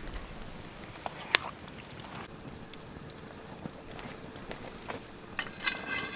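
A wooden spoon knocking sharply against the cast-iron Dutch oven, once at the start and again about a second later, over quiet outdoor background with faint campfire crackle. Near the end there is a brief high, squeaky chirp.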